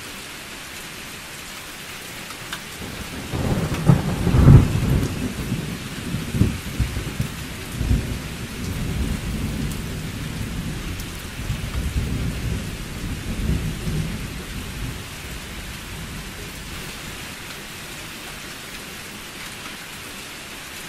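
Thunder rolling over steady rain. A few seconds in a long rumble builds and peaks with a sharp crack, then rumbles on in waves for about ten seconds and fades, leaving the steady hiss of rain.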